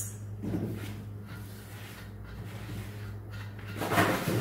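Faint handling sounds as the plastic nut of a braided supply hose is hand-tightened onto a toilet's water inlet, over a steady low hum, with a short scuffing rush of noise about four seconds in.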